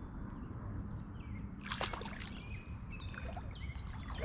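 Water splashing and sloshing as a hooked carp is played at the surface close to the wading anglers, with a burst of splashes a little before the middle, over a steady low rumble.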